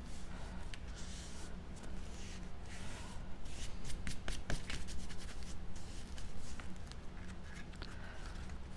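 Cardstock pieces being handled, rustling and sliding against each other, with scattered light clicks and taps.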